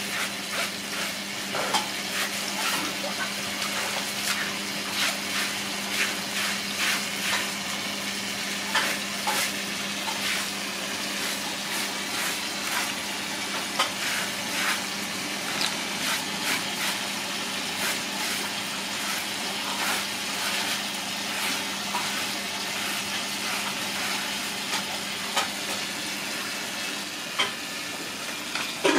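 Hand rubbing and scraping along a wet snake's scaly body on a wet concrete floor: an irregular run of short, sharp rasps as the snake is cleaned. Beneath them is a steady hiss of running water.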